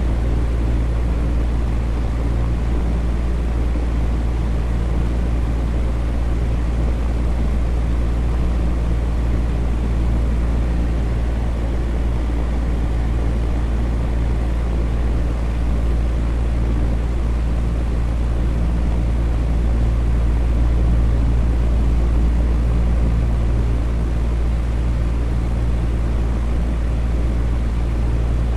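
Electric fan running steadily: a constant low hum and airy whoosh with no change.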